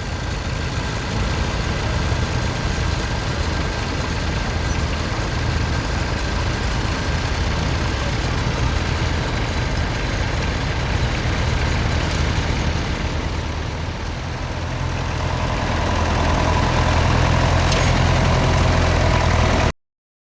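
Tractor engine running steadily, getting louder about fifteen seconds in, then cutting off suddenly.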